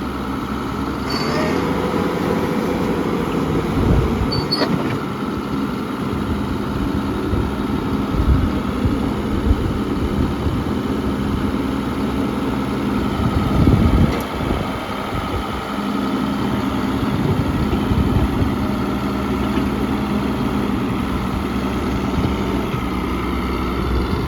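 Caterpillar D6N bulldozer's diesel engine running steadily under load as the hydraulic blade is worked, with a few heavy clunks from the machine and a brief high squeal near the start.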